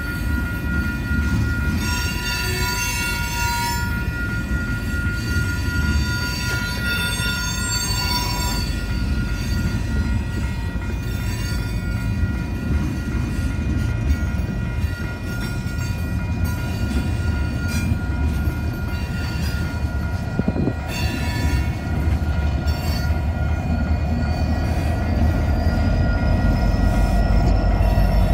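Loaded tank cars of a long freight train rolling steadily over a grade crossing: low rumble with wheel clicks and a steady high wheel squeal. In the last few seconds the rear distributed-power locomotive, an EMD SD70AH, comes up and its engine noise grows louder.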